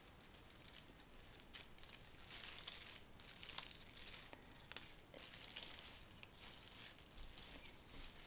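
Faint rustling and crinkling of a large bunch of cut flowers being handled and shaken, leaves and stems brushing together, with scattered soft clicks.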